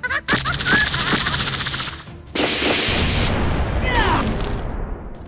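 Stop-motion sound effects: a rapid machine-gun-like rattle of clicks for about two seconds, then a sudden loud burst of noise with a falling whistle about four seconds in.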